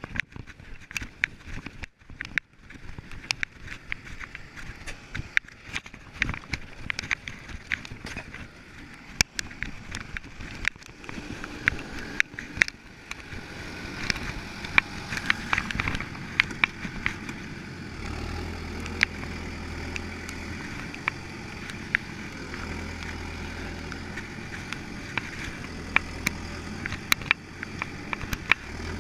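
A string of sharp clicks and knocks, then a tractor engine starting up. The engine runs steadily at idle through the last third.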